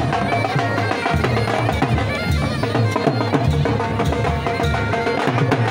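Rajasthani mashak (bagpipe) playing a folk melody in short stepped notes, over dhol drums beating a steady rhythm.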